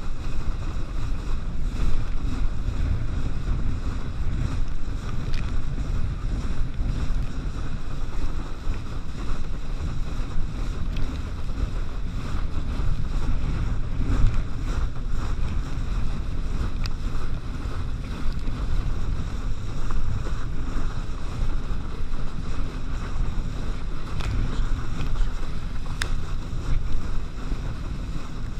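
Steady wind buffeting the microphone of an action camera worn by a kneeboarder, over the rush and splash of water beneath a board being towed at speed through a boat's wake.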